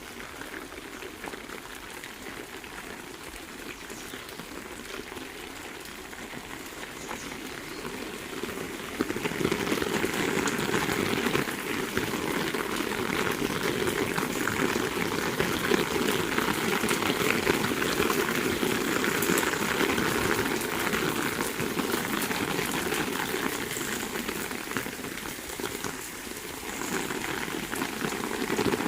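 Heavy rain falling steadily, a dense patter of drops that grows louder about a third of the way through.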